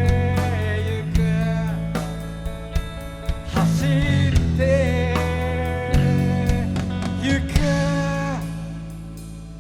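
Live rock band playing an instrumental passage: a lead melody with bent, wavering notes, likely electric guitar, over held bass notes and a drum beat. It grows quieter near the end.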